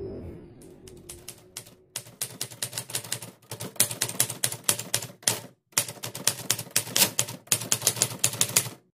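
Typewriter typing sound effect: rapid, irregular clacking of keys, a few clicks at first and then a dense run after about two seconds, with short pauses, cutting off just before the end. A music cue fades out at the very start.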